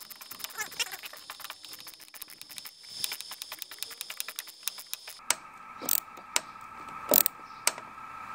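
Small electric screwdriver driving a screw into the ash gunwale of a canoe: the motor whines with rapid clicking for about five seconds, then stops abruptly. A steadier hum and a few sharp clicks follow.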